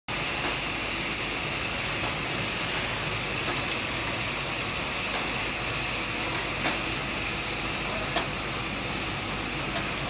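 QSP-18 automatic rotary bottle rinsing machine running: a steady mechanical hiss with occasional sharp clicks.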